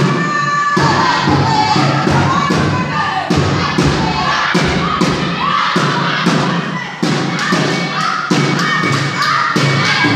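Live traditional group performance: a heavy beat of about two thumps a second, from drumming or stamping, with a group singing and shouting over it.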